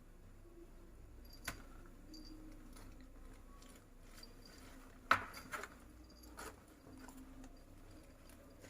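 A few light knocks and rustles from a woven bamboo basket as cats play and shift about inside it. The loudest knock comes about halfway through, with a couple of smaller ones just after.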